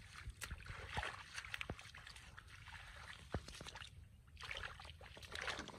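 Shallow muddy water sloshing and splashing irregularly as a person wades and gropes through it by hand, with scattered small sharp splashes.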